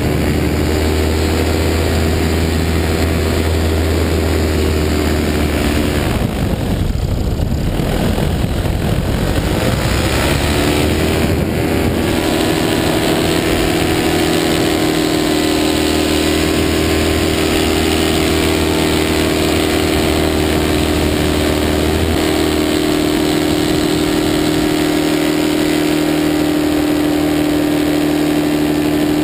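Paramotor engine and propeller running steadily under power. It eases off for a few seconds about six seconds in, then climbs in pitch and settles back to a steady run after about eleven seconds.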